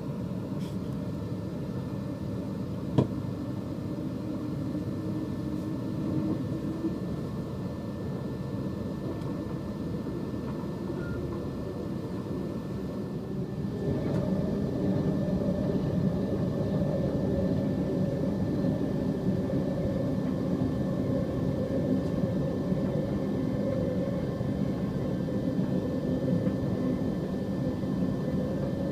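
An electric suburban train running along the line, heard from inside its driving cab as a steady rumble with faint steady tones. There is a single sharp click about three seconds in, and the sound gets louder from about halfway through.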